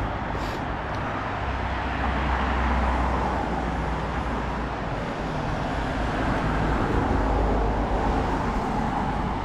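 Steady outdoor road-traffic noise with a low, shifting rumble.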